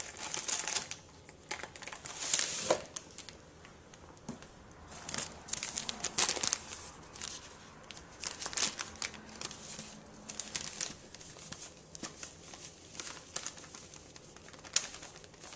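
Bag of cornmeal crinkling and rustling in irregular bursts as it is handled and the cornmeal is poured out, with a sharp click near the end.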